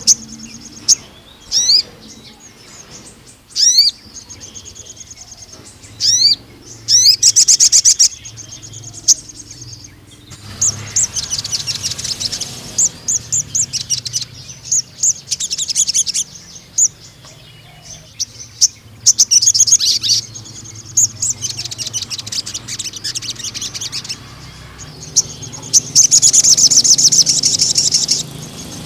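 Sogon (crimson sunbird) singing hard: shrill, rapid trills and quick sweeping chirps in bursts, with long fast trills recurring through the song and the longest, loudest one near the end.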